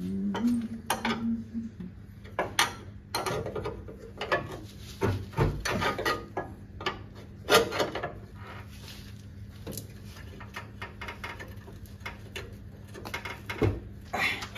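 Irregular metallic clinks, taps and scrapes as washers and bushes are worked by hand into the bolt hole between a Mahindra Scorpio's steel tie member and its chassis rail, over a faint steady hum.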